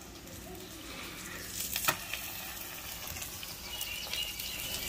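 Paratha sizzling as it fries on a flat iron tawa over a wood fire, a steady soft hiss. A single sharp knock about two seconds in.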